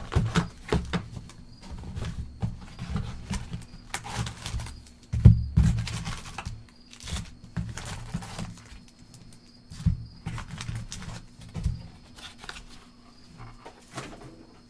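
Crinkling and tearing of plastic wrap and foil trading-card packs as a sealed hobby box is opened, in irregular rustling bursts with light handling thumps, the loudest about five seconds in.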